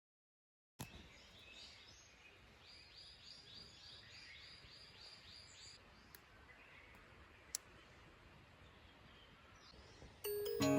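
Faint outdoor ambience with a bird calling a quick run of about a dozen repeated high notes, about four a second, then stopping. Background music starts just at the end.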